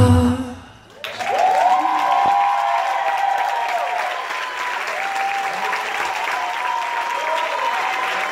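A recorded song fades out, and about a second in an audience starts applauding, with drawn-out whoops and cheers over the clapping.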